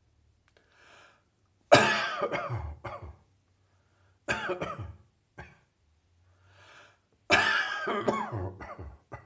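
A person coughing from a chest cold that is on the mend: three coughing fits about three seconds apart, each one loud cough followed by a few shorter ones, with faint breaths in between.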